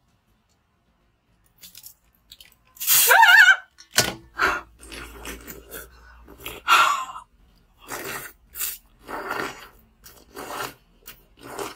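Frozen cola slush being bitten and chewed straight from a cut-open plastic Pepsi bottle: a short vocal sound, then from about four seconds in a run of separate crunching bites.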